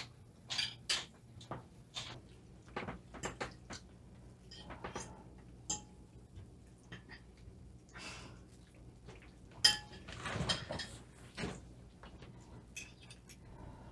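Forks tapping and scraping on china plates at a dinner table: scattered light clicks, with one sharper clink a little under ten seconds in.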